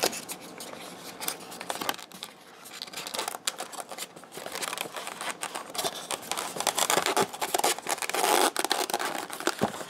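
Hands fitting a foam hatch lid onto a model seaplane's foam fuselage: foam rubbing and scraping with many small clicks, growing louder and busier in the last few seconds.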